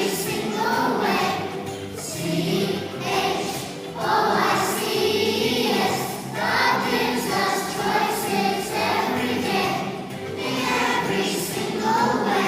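A group of young children singing a song together as a choir, with no pauses.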